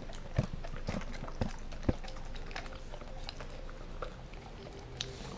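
A dog, a Kelpie–German Shepherd–wolf mix, eating shrimp: quiet chewing and licking with a few short sharp clicks scattered through.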